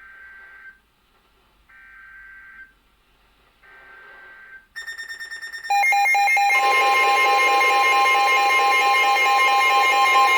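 Three short bursts of Emergency Alert System SAME header data tones, each about a second long. About six seconds in, the loud, steady two-tone EAS attention signal starts and holds, announcing a new severe thunderstorm warning.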